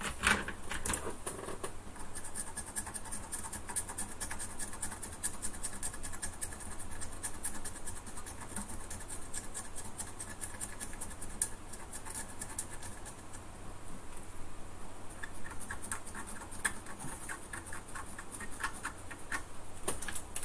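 Swiss Army knife blade scraping rapidly back and forth across copper traces on a calculator circuit board, in many short strokes. It is cleaning off corrosion from leaked batteries, which had stopped the traces from taking solder.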